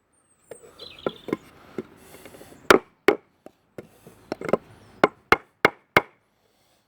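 Hammer striking a wooden block laid on a timber, about a dozen irregular knocks, driving the upper piece of wood down onto a toothed timber connector so its teeth bite into the wood. The loudest blow lands a little under three seconds in.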